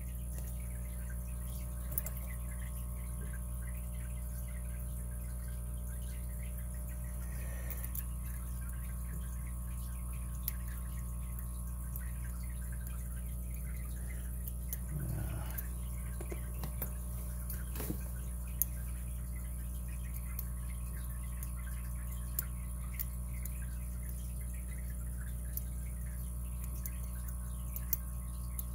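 A steady low electrical hum, with faint, scattered small clicks and scrapes from a pick and tension wrench working the pin stack of a brass 5-pin padlock.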